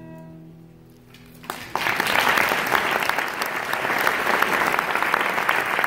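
The final held chord of cello and piano rings and fades, then audience applause breaks out a little under two seconds in and carries on as the loudest sound.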